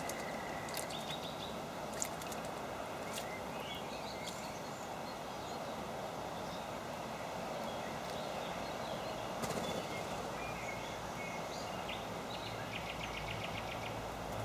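Small birds giving short, scattered chirps over a steady background hiss, with a few sharp clicks; near the end a quick run of ticking notes.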